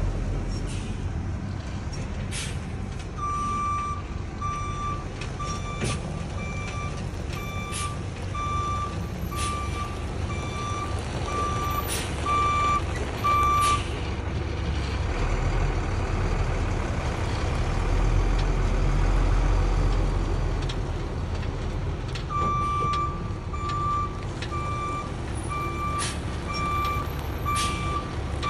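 Dump truck's backup alarm beeping at an even pace as the truck reverses with a chip spreader on its tailgate, over the steady low running of its diesel engine. The beeping stops about halfway through and starts again near the end.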